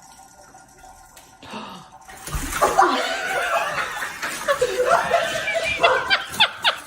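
A person laughing hard, starting about two seconds in and ending in a quick run of short laughs.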